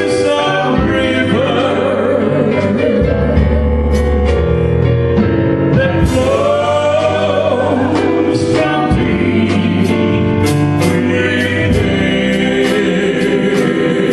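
Gospel-style worship song: singing over a band with sustained bass and a steady beat of drum or cymbal strikes.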